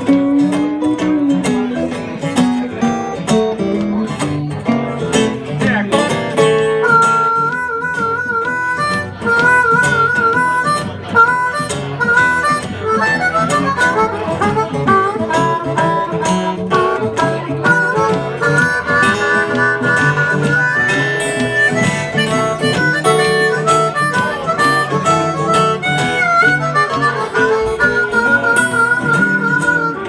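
Live acoustic blues instrumental: two acoustic guitars playing, joined about seven seconds in by a harmonica solo of held and bent notes that carries on over them.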